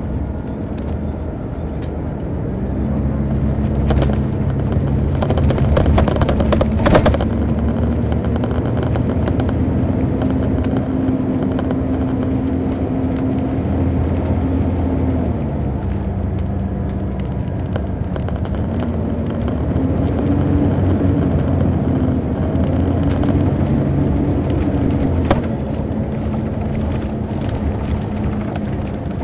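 Detroit Diesel Series 60 diesel engine of a 2002 MCI D4000 coach, heard inside the cabin from the back seat. The engine note climbs a couple of seconds in and holds under load, drops back about halfway, climbs again a few seconds later and falls off shortly before the end, with rattles and knocks a few seconds in.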